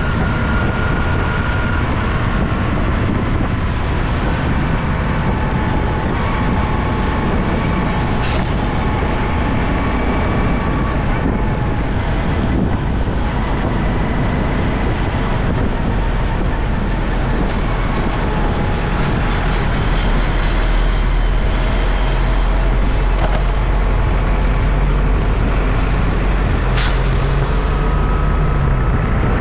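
Busy road traffic heard from a moving motorbike: a steady, loud mix of motorcycle, auto-rickshaw and truck engines. There is a sharp click about 8 seconds in and another near the end.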